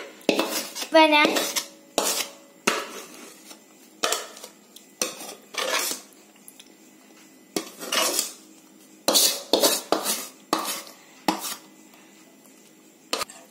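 A steel spoon scraping and knocking against a steel cooking pan and tray as thick, hot gram-flour Mysore pak mixture is scraped out into the tray. Irregular short scrapes and clinks, several a second at first, sparser toward the end.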